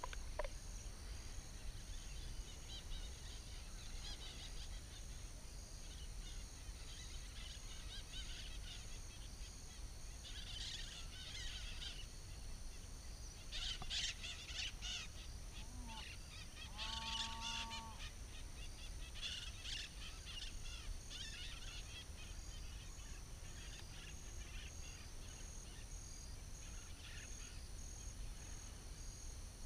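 Marsh ambience: a steady high insect drone with several short bursts of bird chirps, and one brief honking bird call past the middle.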